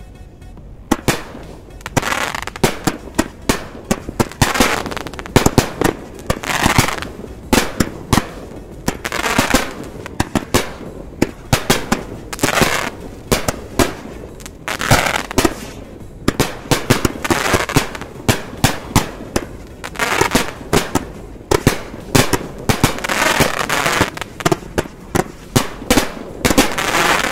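A consumer firework cake set, the Celebrations 48-shot set of four 12-shot aerials with 1.2-inch tubes, firing aerial shots one after another. It is a rapid, loud series of launches and bursting reports.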